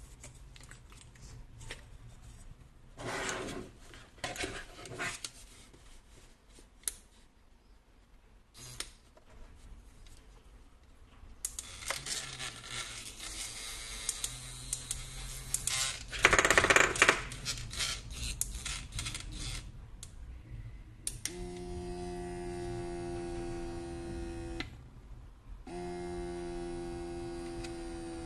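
Clicks and short knocks from a plastic device being handled, then a longer stretch of noisy mechanical running. In the last third an electric vibration motor gives a steady hum at one pitch, which stops for about a second and starts again.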